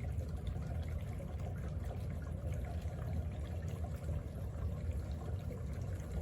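Lacidoll cool-mist humidifier running, with water trickling and bubbling in it over a steady low hum.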